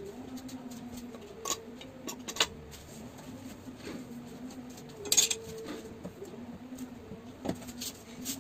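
Wooden shipping crate being pulled apart by hand: scattered knocks and clatters of loose wooden slats against the crate, the loudest about five seconds in.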